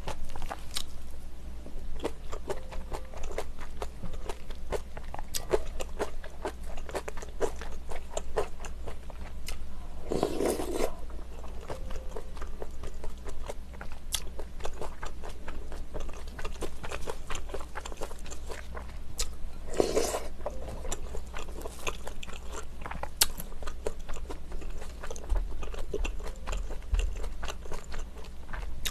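Close-miked eating: chewing of soft rice cakes and crunching of kimchi, with many small mouth clicks and the spoon scraping the bowl. Twice a short, louder sip of broth, about ten seconds in and again about twenty.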